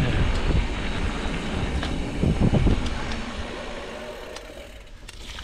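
Mountain bike descending a dirt trail: wind rushing over the microphone and a low rumble of tyres on the ground, with a few sharp clicks and rattles. The noise quietens about four seconds in.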